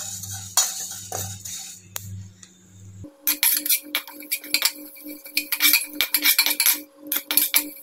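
Metal spatula scraping and clinking against an aluminium kadai as cumin seeds are stirred while dry-roasting. A low hum underneath cuts off about three seconds in, and a steady pulsing tone runs on under the scraping after that.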